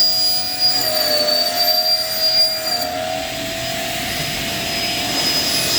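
Motor-driven circular saw of a PVC-cutting machine running with a steady high whine over a rushing noise. The pitch dips slightly about a second in, and the highest tones fade out about three seconds in.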